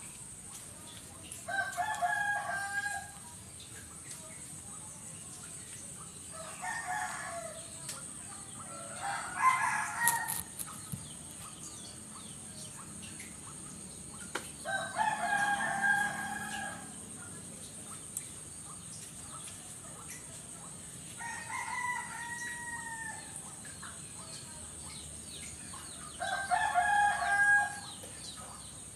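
Roosters crowing, about six crows spread over the stretch, each lasting a second or two.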